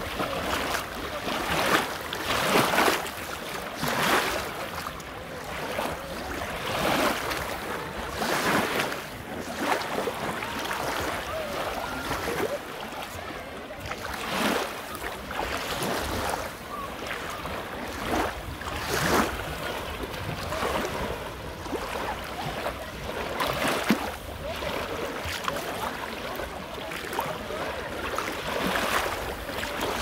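Small sea waves washing in and out over a beach of small shells and shell grit at the water's edge. Each wash comes as a brief rushing surge every few seconds over a steady hiss of water.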